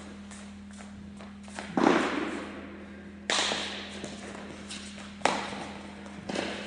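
A baseball hitting hard during solo fielding drills: three sharp thumps about a second and a half to two seconds apart, then a fainter one near the end, each trailing an echo in a large hard-walled hall. A steady low hum runs underneath.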